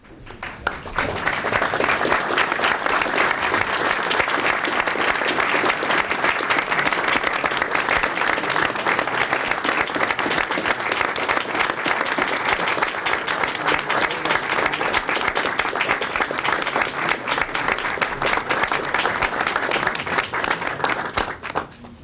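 Audience applauding. The clapping rises quickly about half a second in, holds steady throughout, and stops abruptly just before the end.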